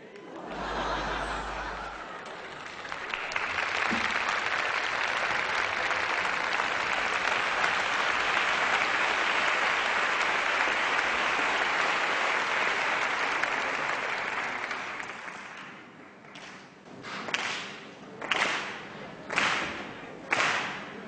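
Theatre audience applauding, a dense even clapping that fades out about fifteen seconds in. Near the end come about five separate sharp strokes, roughly one a second.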